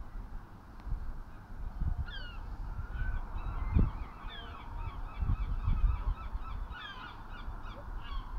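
Wind buffeting the microphone in low gusts, with birds calling in many short, falling chirps from about two seconds in.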